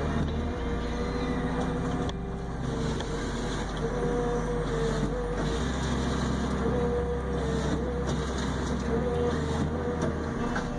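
Heavy machine's engine running steadily, with a wavering whine over a low hum. The sound shifts abruptly a few times, as from one machine to another.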